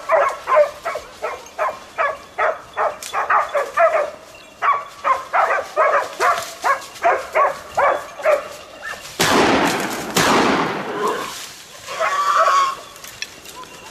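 Hunting dog barking at a wild boar, a steady run of about two barks a second. About nine seconds in, a loud rushing noise lasting nearly two seconds takes over, and a shorter higher call follows near the end.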